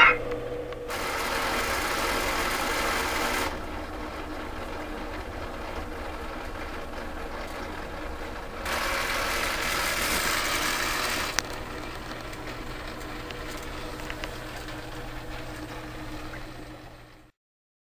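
Heiwa Bunny Girl pachinko machine running: a steady mechanical whir and rattle with a low hum, rising to two louder stretches of rattling, one near the start and one about halfway through. A sharp click comes just after the second, and the sound cuts off suddenly near the end.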